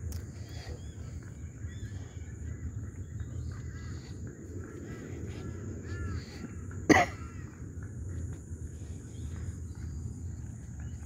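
Birds chirping in many short calls over a steady high-pitched whine and a low rumble, with one sudden, sharp, much louder sound about seven seconds in.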